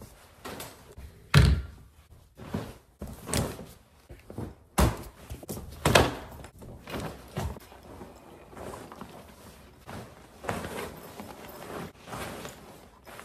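Bags and packing gear being put down and handled on a wooden floor: a string of thuds and knocks, the loudest about a second and a half in, with rustling of bags and straps between.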